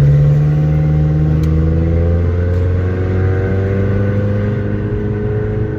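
Car engine heard from inside the cabin, its pitch climbing slowly and steadily.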